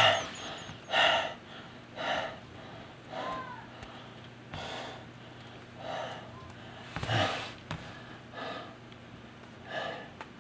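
A man breathing hard in repeated gasps, about one breath a second, the first gasp the loudest.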